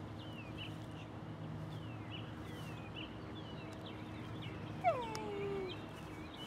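Small birds chirping over a low steady hum, with one louder falling whine about five seconds in.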